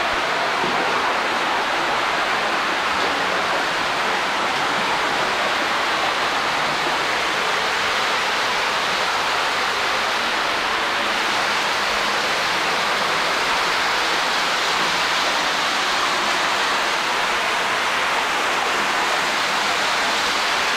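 Cave stream water splashing and running over rocks close by, a steady rushing sound.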